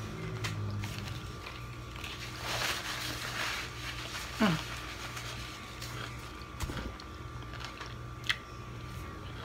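Quiet room tone with a steady low hum. Over it come soft rustling, a couple of light taps, and a brief falling vocal sound about halfway through.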